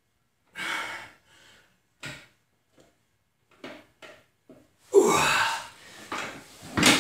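A man breathing out hard with each rep of barbell preacher curls, with one loud, strained exhale about five seconds in. Just before the end a loaded curl bar lands with a metal clank and the plates ring briefly.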